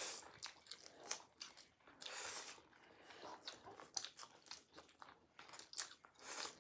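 Close-up eating sounds: chowmein noodles and sausage being chewed and bitten, with irregular wet mouth clicks and crunches.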